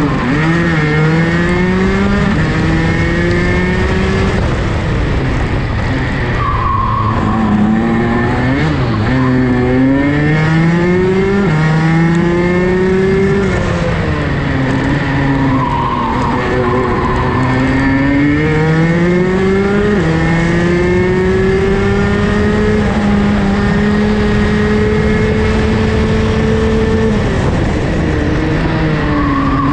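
Rotax DD2 kart's 125 cc two-stroke single-cylinder engine at racing speed, heard from onboard. The revs climb for several seconds at a time and then drop sharply, over and over, as the kart accelerates and slows around the lap, with one longer, slowly rising pull in the second half.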